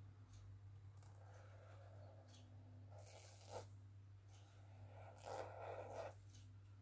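Faint scratchy strokes of a felt-tip marker drawn across sketchbook paper, in three spells about a second, three seconds and five seconds in. A low steady hum runs underneath.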